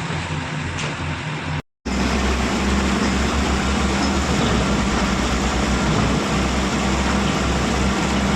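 Heavy diesel engine of construction machinery running steadily with a deep hum. The sound drops out completely for a moment about one and a half seconds in, then comes back a little louder.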